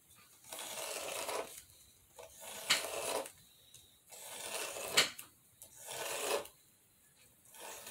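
Craft blade slicing through strips of cardstock on a metal workbench: four scraping cuts of about a second each, two of them with a sharp click.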